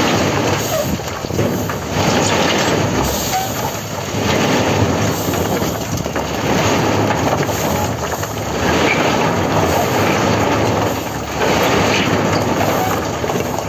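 Tipper truck dumping a load of building stone: rocks sliding and clattering out of the raised steel bed in a continuous rumble that swells and eases every two to three seconds, with the truck's engine running underneath.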